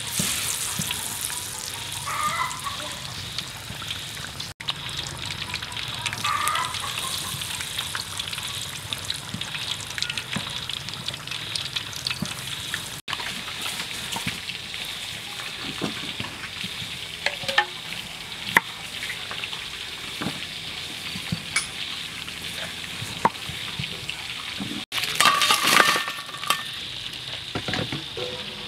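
Frog pieces deep-frying in a wok of hot oil, sizzling steadily while they are stirred. Partway through come sharp knife clicks on a wooden chopping board as limes are cut, and near the end there is a brief louder burst.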